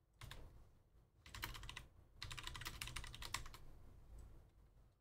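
Faint typing on a computer keyboard: a brief patter of keystrokes, then two quick runs, the second the longer.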